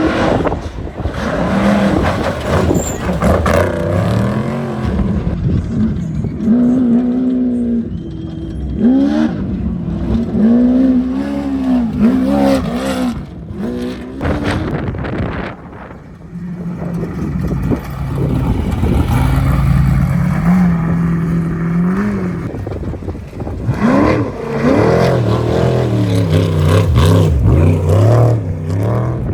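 Off-road race vehicles running hard, their engine pitch climbing and dropping again and again as they accelerate and shift. The sound eases off about halfway through, then builds again near the end.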